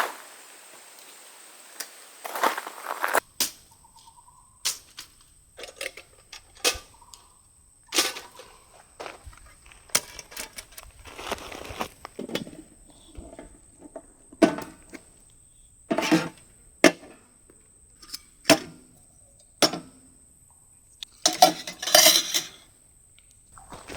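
Irregular clicks, knocks and light clinks of camping gear being handled by hand, with short rustling bursts in between. A steady thin high-pitched tone runs underneath.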